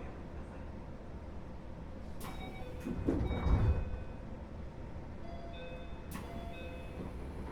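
Interior noise of a Keio 8000 series commuter car, heard from above its GTO-VVVF main controller: a steady low rumble, with sharp clicks about two and six seconds in and a louder surge of rumble about three seconds in.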